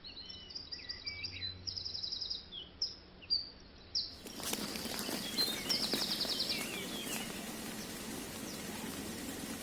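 Small birds chirping and calling, several voices overlapping, with quick buzzy trills among them. About four seconds in, a steady outdoor hiss comes up under the birds.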